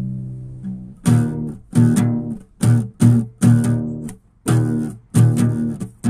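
Background music: guitar chords struck in a steady rhythm, each ringing and fading before the next.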